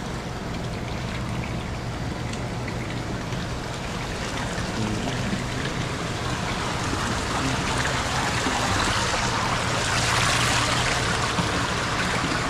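Water running and splashing into concrete bait-minnow tanks from inflow pipes and aeration, a steady rushing that grows louder in the second half, over a faint low hum.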